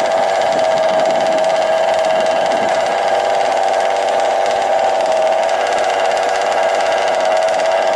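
Small two-stroke petrol engines of 1/5-scale RC off-road cars idling at an even, unchanging pitch, with no revving.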